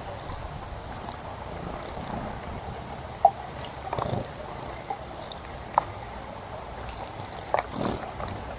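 Wild birds bathing in a bird bath: a few short splashes and brief chirps over a steady background hiss.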